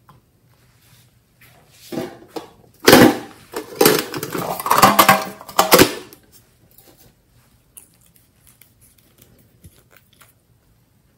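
Metal tin box and small items handled close up: a few seconds of clattering, rattling clicks, loudest in the middle, then a few faint clicks.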